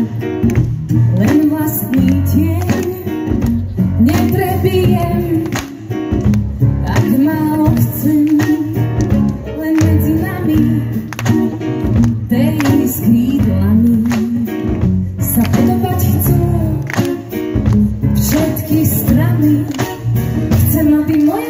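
Live band music with female vocals over electric bass, guitar and drums.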